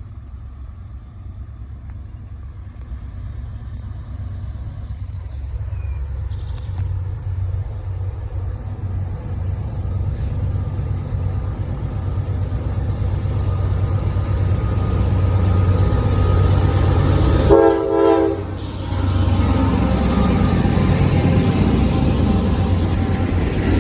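A CSX GE AC44 diesel locomotive approaching under power, its engine rumble building steadily louder, with one short horn blast about three quarters of the way in as a friendly salute; the engine and train noise carry on after it.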